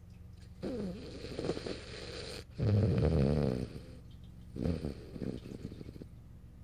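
French bulldog snoring in its sleep: about three rasping snore breaths, the loudest and deepest about three seconds in.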